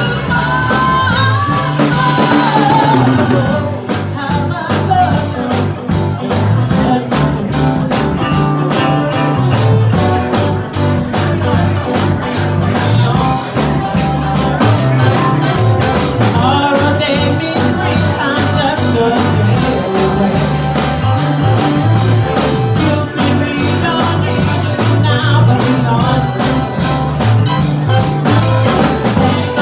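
Live rock band playing: drum kit keeping a steady beat under guitar, with singing.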